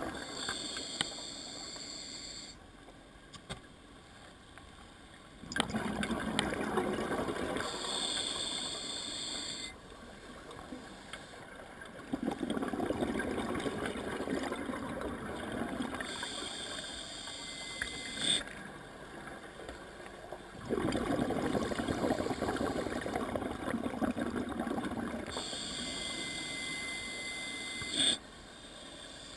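Scuba diver breathing through a regulator underwater: a hiss on each inhale, then a rush of gurgling exhaust bubbles on each exhale. The breaths are slow, about one every eight seconds, three in all.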